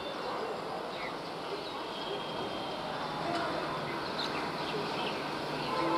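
Steady rushing of a BEML electric multiple unit local train approaching in the distance, with birds chirping over it.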